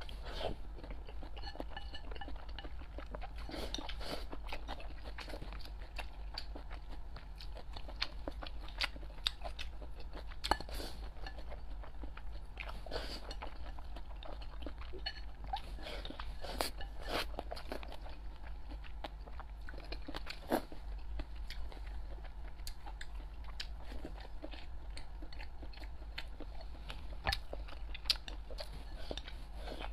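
A person chewing and crunching food, with many small sharp, irregular clicks of bites and chews, over a steady low hum.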